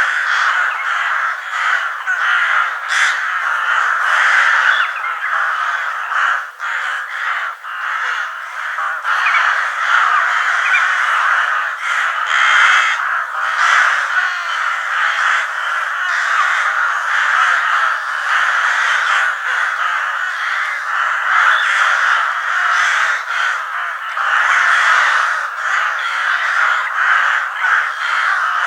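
A large flock of crows cawing, many calls overlapping into a dense, unbroken chorus.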